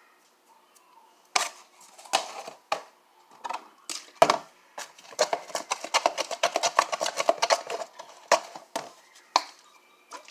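Slime being mixed with a utensil in a container after activator is added, the utensil clicking and knocking against the sides. There are a few separate knocks, then a fast run of stirring clicks for about three seconds in the middle, then a few more knocks.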